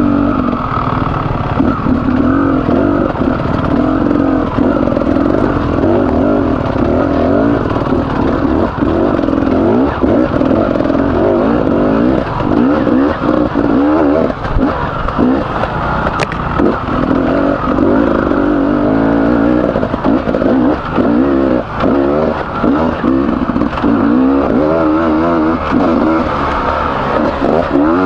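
Beta 300RR two-stroke enduro motorcycle engine under riding load, revs rising and falling constantly as the throttle is worked, heard from on the bike.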